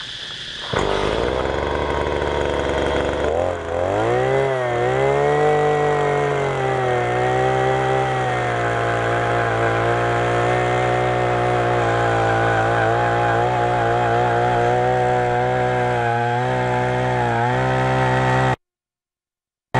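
Takyo TK-2P earth auger's 49 cc two-stroke engine running at a lower speed, then revving up about three seconds in and holding steady under load as the 25 cm auger bit drills into hard orchard soil. It dips briefly near the end, then cuts off suddenly.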